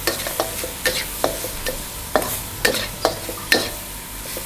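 Chopped shrimp stir-frying and sizzling in oil in a steel wok, while a metal wok spatula scrapes and clanks against the pan about twice a second, each stroke ringing briefly. The clanks stop near the end, leaving the sizzle.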